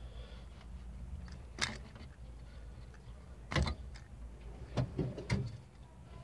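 A plastic car dome-light housing being handled and worked free of its metal roof bracket: a handful of sharp clicks and knocks, the loudest about three and a half seconds in.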